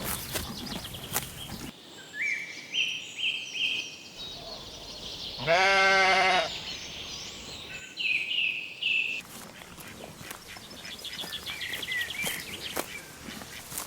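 A sheep bleats once, a single wavering bleat of about a second just past the middle, over a background of light clicks and short high chirps.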